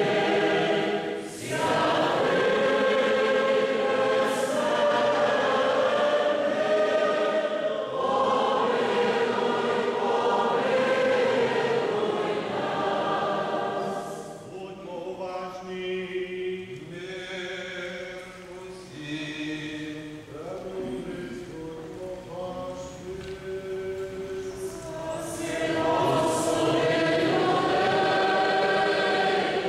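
A choir sings a Ukrainian Byzantine-rite liturgical chant in several voices. It grows softer and sparser about halfway through, and full voices return near the end.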